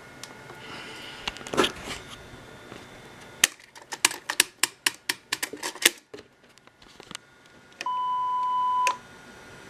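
A quick run of sharp mechanical clicks from a Sony Betacam SP camera's controls and tape transport, then a steady 1 kHz beep lasting about a second: the camera's reference test tone.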